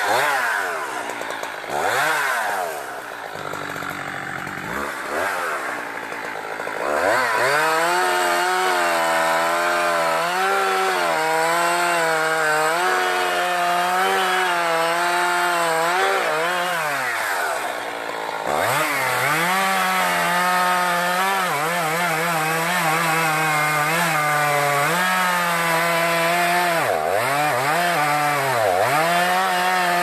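Two-stroke chainsaw cutting into the trunk of a standing tree to fell it: the engine is revved up and down a few times over the first several seconds, then held at high revs under load in the cut for long stretches, easing off briefly about halfway through and again near the end.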